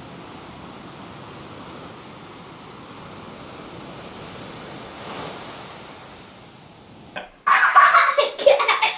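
Steady wash of breaking ocean surf, swelling a little about five seconds in. Near the end it cuts off suddenly and loud voices take over.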